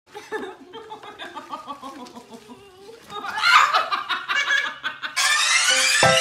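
A person laughing in short pulses, growing louder about halfway through. Near the end a rising whoosh leads into music.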